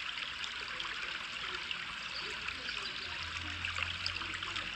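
Steady trickling of running water, like a small stream, with a faint low hum joining about three seconds in.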